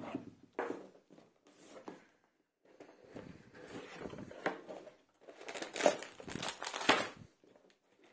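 Hands opening a cardboard box and handling the parts inside: the flaps scraping and knocking, with short rustles and knocks in separate bursts. The busiest stretch comes about two-thirds of the way through.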